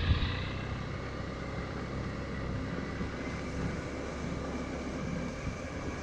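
Steady running noise of a Suzuki Burgman 650 parallel-twin maxi-scooter under way, engine and rushing air blended into an even, low rumble.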